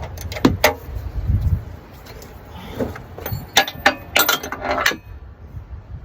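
Metal hand tools clinking and rattling in irregular, sharp clicks, in two clusters: one near the start and a longer one in the second half.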